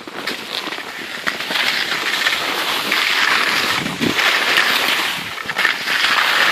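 Skis sliding and scraping over snow: a steady hiss that grows louder about a second and a half in, then swells and dips.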